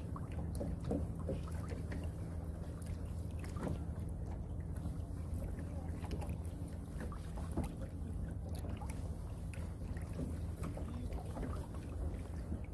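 Steady low hum of a small fishing boat's engine running, with a few faint ticks and knocks.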